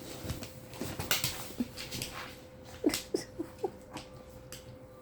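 American bully dog whimpering: four short high whines about three seconds in, after a run of small clicks and scuffles as the dog moves.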